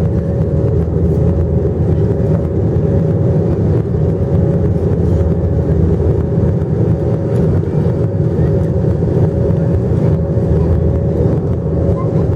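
Airliner cabin noise in flight: a steady deep rumble of the engines and airflow with a thin steady hum above it.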